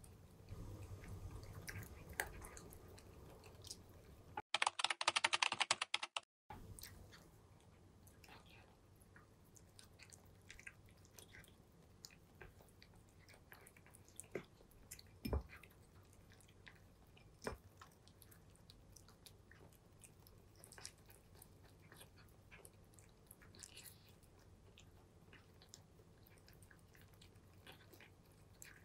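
Two cats crunching dry kibble, a steady patter of small crisp crunches. About five seconds in, a loud burst of rapid clicking lasts about two seconds and starts and stops abruptly.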